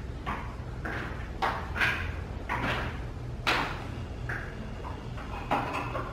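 Slow footsteps of spiked shoes on a wet epoxy clear coat: a series of short, irregular scuffs about once a second as the wearer walks across the floor sprinkling anti-slip.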